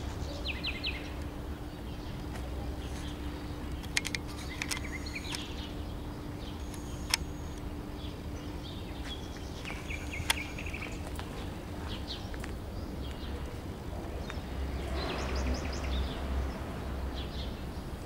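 Outdoor background: birds chirping on and off over a low steady rumble, with three single sharp clicks spread through it.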